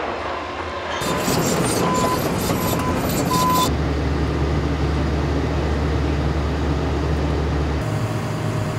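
Construction machinery running steadily with a low engine hum, after a few short high beeps about two to three seconds in.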